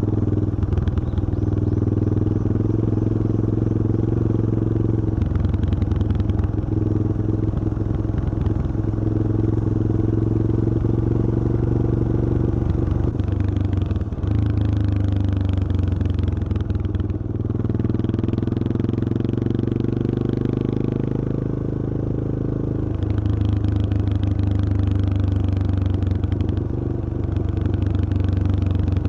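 Yamaha XT225 Serow's single-cylinder four-stroke engine running while riding, its note shifting in steps several times as the throttle and gears change.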